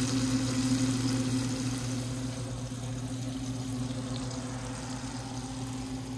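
Battered fish deep-frying in a pot of hot oil: a steady sizzling hiss, a little louder in the first couple of seconds, over a steady low hum.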